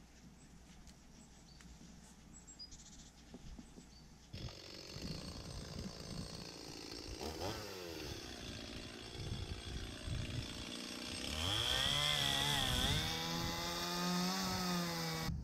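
A chainsaw starts up about four seconds in and revs, its pitch rising once. From about eleven seconds it runs steadily and louder as it cuts through an overhead olive branch.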